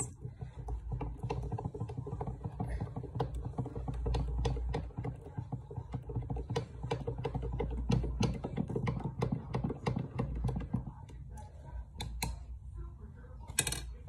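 Long metal spoon stirring a drink in a stemmed glass mug, clinking rapidly against the glass. The clinking stops about eleven seconds in, followed by a few single taps.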